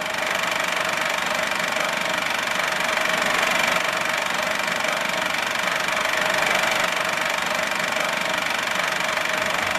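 Movie projector running: a steady mechanical clatter with a constant whine.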